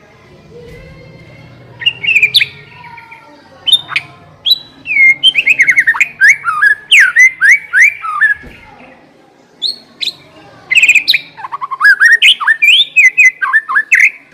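White-rumped shama (murai batu) singing: rapid runs of loud, sliding whistled notes in several phrases, with a short pause about two-thirds through before a final long run.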